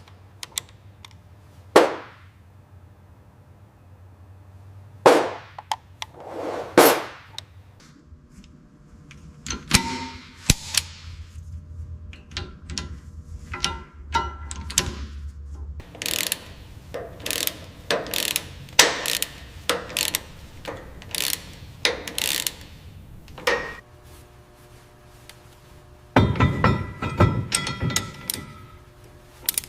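Hand tools working on metal parts: scattered knocks, clanks and ratchet clicks, some in quick runs, with a busier stretch of clattering near the end.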